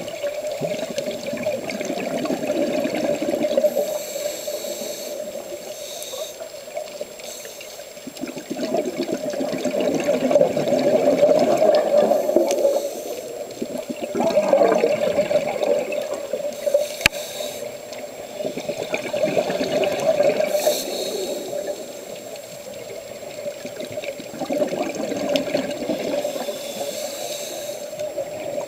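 Scuba breathing heard from inside an underwater camera housing: regulator exhaust bubbling in muffled swells that rise and fade about every five seconds. A single sharp click about 17 seconds in.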